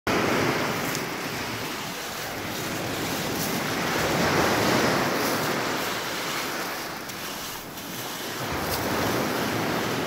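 Sea surf washing onto a pebble beach, swelling and easing slowly, with wind noise on the microphone.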